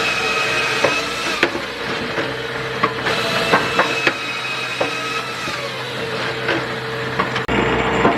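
Firewood processing machinery running with a steady hum, with irregular knocks and clatters of oak pieces striking the machine. A high squeal comes twice and drops slightly in pitch as it fades.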